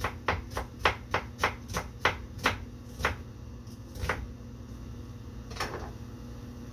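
Kitchen knife slicing a red onion into thin julienne strips on a wooden cutting board: a quick run of about a dozen sharp knocks of the blade on the board, three or four a second, then two slower single cuts.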